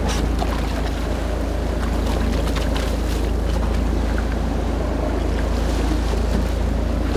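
Fishing boat's engine running steadily, with wind noise on the microphone.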